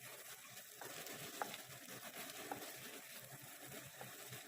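Onions, green chillies and ginger-garlic paste sizzling faintly in butter in a pan, being cooked until the raw smell of the paste goes, with a few light clicks.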